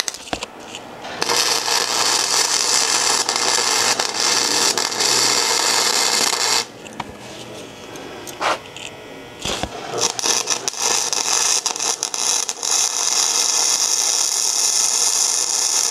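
MIG welding arc crackling as a steel bicycle sprocket is tack-welded to steel flat stock. There is one weld of about five seconds starting a second in, then a pause with one brief blip of arc, and a second weld that runs on through the end.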